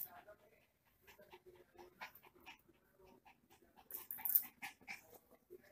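Miniature pinscher panting quietly, with a few short faint whines and scattered light clicks and rustles.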